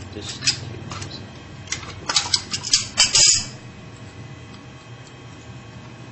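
Small metal engine parts clicking and rattling as hands work the threaded tube loose on a lawnmower engine's carburetor and fuel-tank assembly: a quick run of sharp clinks, loudest about two to three seconds in, that stops about halfway through, leaving a low steady hum.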